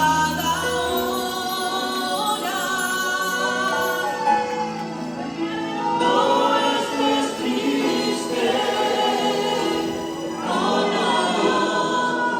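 Church choir singing a Spanish-language worship song live, with instruments underneath.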